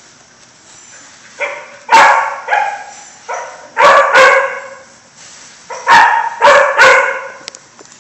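German shepherd barking loudly, about ten sharp barks in three quick bunches.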